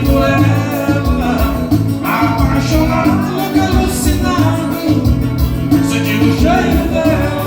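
Live dance band playing upbeat Latin-style Brazilian dance music, with a lead singer over a steady, pulsing bass beat.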